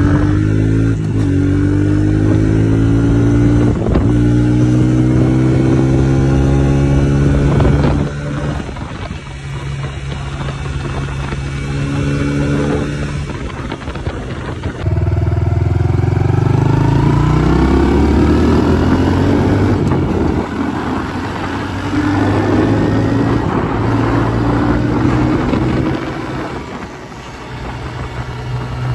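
2020 Honda CRF110F pit bike's single-cylinder four-stroke engine, heard from the rider's seat, accelerating through the gears: its pitch climbs in steps and drops back at each shift. The throttle eases off about eight seconds in and again near the end.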